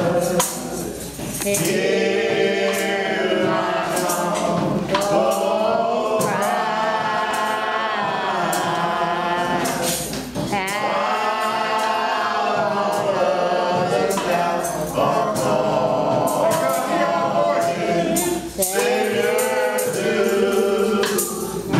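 Gospel choir and congregation singing in long held phrases, with a tambourine beating along.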